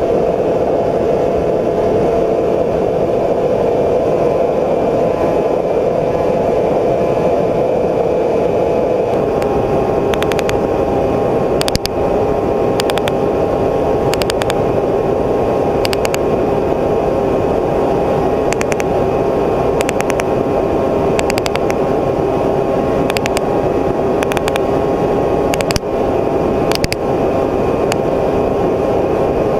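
Multirotor drone's motors and propellers humming steadily, the pitch stepping up slightly about nine seconds in. From about ten seconds in, brief crackles break in every second or two.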